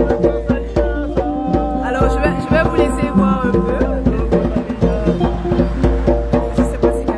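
Ngoni, a West African plucked lute, played live in a steady stream of quick plucked notes.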